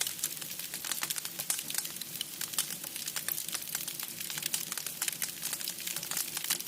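Wood fire crackling in a homemade camping wood stove: a dense, irregular run of small sharp snaps and pops.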